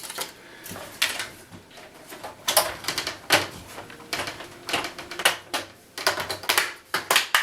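Plastic screen bezel of an Acer Aspire laptop being pressed onto the display lid, its clips snapping into place in a series of sharp, irregularly spaced clicks.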